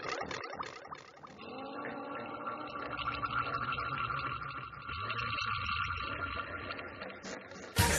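Volkswagen Worker truck's diesel engine running, with a steady high whine over it.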